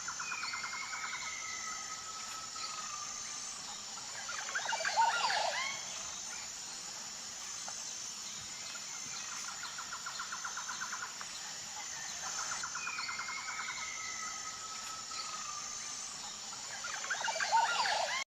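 Bird-like chirps, trills and gliding whistles over a steady high-pitched hiss like insects. The same few seconds of recording play twice, each time with a louder burst of chirps near its end.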